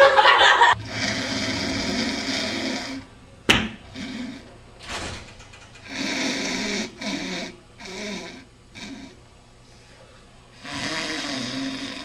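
A person performing a loud, exaggerated mock snore: several long, rasping breaths with pauses between, some fluttering in quick pulses like a rattling snore. There is a sharp click about three and a half seconds in.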